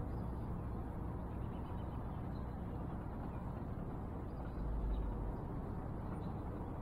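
Steady low rumbling background noise, with a dull low thump about four and a half seconds in.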